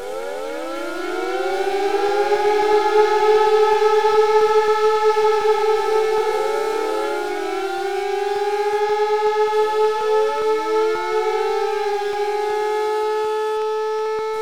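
Several siren wails overlapping as an alarm. Each one rises in pitch and then holds a steady wail, and fresh ones start every second or two.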